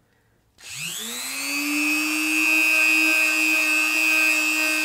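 Handheld rotary tool switched on about half a second in, its motor whine rising quickly in pitch and then holding a steady high whine, as its spinning polishing wheel buffs wax into a leather shoe's toe cap.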